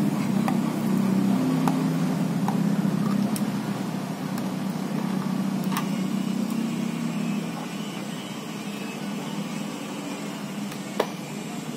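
A steady low engine hum that drops a little after about seven seconds, with faint clicks of a small cardboard box being opened by hand and one sharper click near the end.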